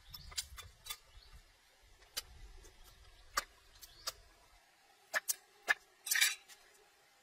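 Scattered, irregularly spaced sharp clicks and taps, with a quick rattle of several together near the end. A low rumble runs underneath and stops about two-thirds of the way through.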